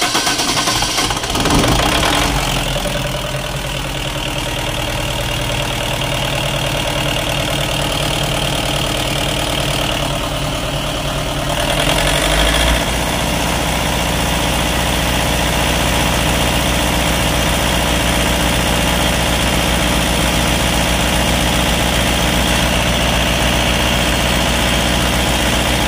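Diesel generator set engine running steadily just after starting, with water newly drained from its diesel fuel. About twelve seconds in, its note deepens and then holds steady.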